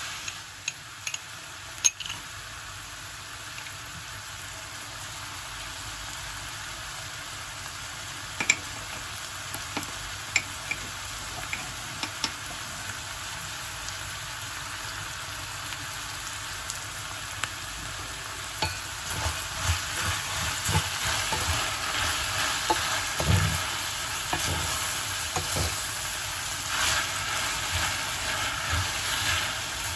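Food frying in hot oil in a pan, with a steady sizzle. Occasional short knocks and clinks of a utensil against the pan, more frequent in the second half.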